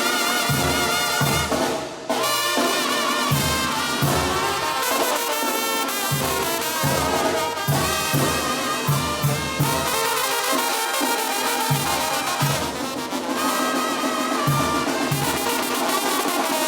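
Live banda music: a brass melody over a pulsing low bass line, briefly dipping about two seconds in.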